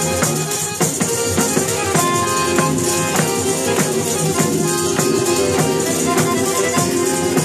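Live southern Italian folk dance music: tamburelli, frame drums with jingles, beat a fast, steady rhythm over accordion and guitar.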